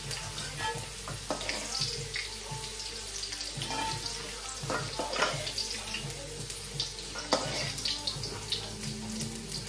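Potato slices frying in hot oil in a metal wok: a steady sizzle. Through it come many short clicks and scrapes of a metal slotted spoon against the wok as the fried slices are lifted out.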